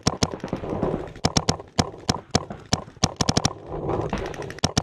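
Paintball markers firing: sharp pops in quick strings of two to four shots, with single shots between, over a light rustling haze.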